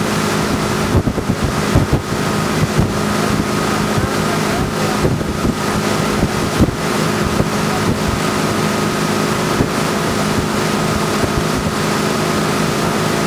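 Motorboat engine running steadily under way, a constant drone over the rush of the wake water and wind buffeting the microphone, with a few brief knocks from the buffeting.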